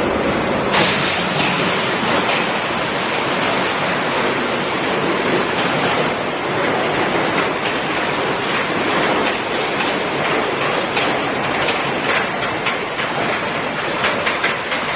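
Dual-shaft shredder crushing a refrigerator: a loud, steady grinding and tearing noise of metal and plastic being shredded. A sharp crack comes about a second in, and a run of short snaps and cracks comes near the end.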